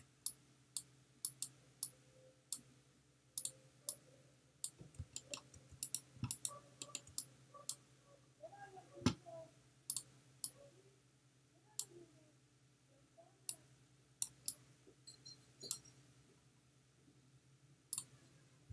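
Computer mouse clicking at irregular intervals, single clicks and quick pairs, over a faint low steady hum, with one louder thump about nine seconds in.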